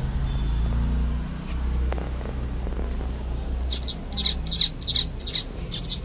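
Zebra finches calling: a quick run of short, high chirps that starts near the end, over a low steady rumble.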